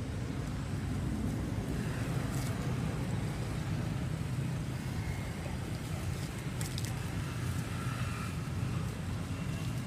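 Steady low rumble of a motor vehicle engine running, holding at an even level throughout.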